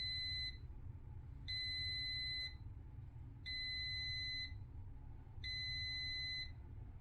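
Kenwood air fryer's end-of-cycle alert: a steady electronic beep, each about a second long, repeating every two seconds, signalling that the 20-minute cooking timer has run out.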